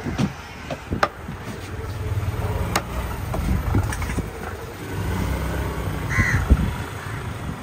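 Heavy cleaver chopping fish on a wooden log chopping block, a few sharp chops in the first three seconds, over a steady low rumble. A crow caws briefly about six seconds in.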